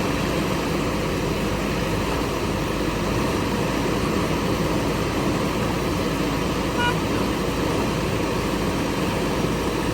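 Heavy diesel engine running steadily. A brief, short high tone sounds about seven seconds in.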